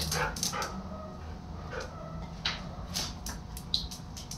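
A dog giving a few short whimpers and yips, among scattered sharp clicks.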